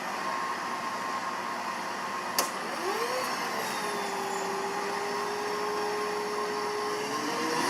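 Steady mechanical whirring with a motor whine that rises just before the three-second mark and then holds at one pitch, plus a single sharp click a little before that.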